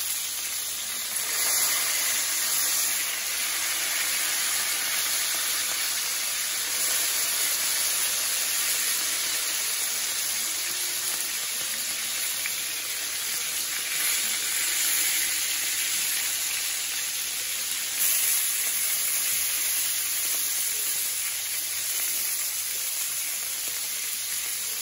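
Beef tenderloin steaks searing in a hot pan: a steady sizzle that swells briefly now and then.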